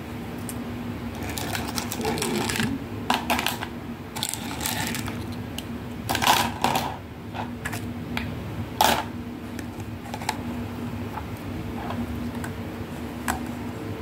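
Plastic toy tea set pieces being handled, clacking and tapping against each other in scattered light clicks, loudest about six and nine seconds in.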